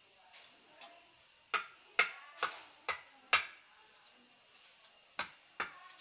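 A series of sharp clicks from hands working at a small tree: five about half a second apart starting about a second and a half in, then two more near the end.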